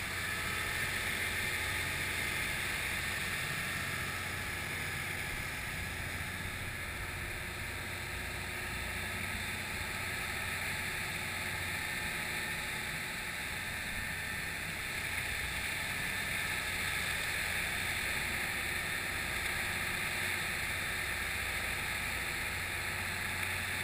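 Passenger ship under way, with water rushing along its hull and wind on the deck, over a steady low hum. The noise holds even throughout.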